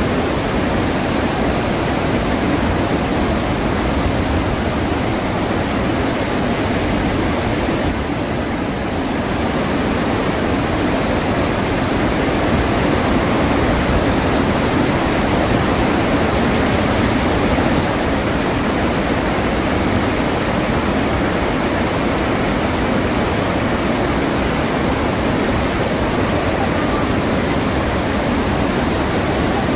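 Iguazu Falls: the steady, dense rush of a huge waterfall, a continuous wash of falling water that is heaviest in the low-middle range, with a faint dip about eight seconds in.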